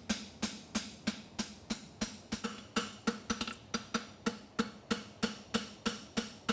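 Hand hammer striking a steel horseshoe on an anvil, forging the shoe: a steady rhythm of about four blows a second, each with a short metallic ring.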